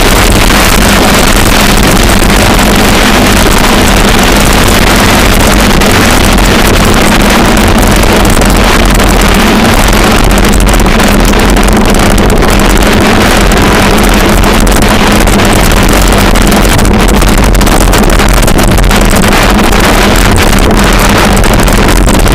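Loud, steady wind buffeting on a Garmin VIRB action camera's microphone as a bicycle descends at about 40 to 50 mph.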